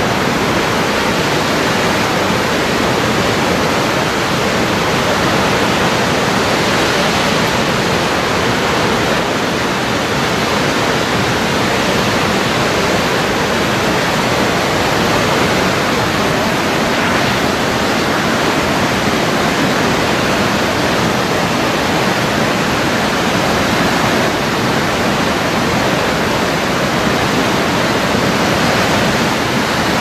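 Waterfall: a loud, steady roar of falling water that holds even throughout.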